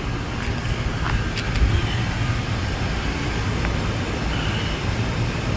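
Steady low rumbling noise with no clear pitch, like road traffic or a moving vehicle, with a few faint brief ticks.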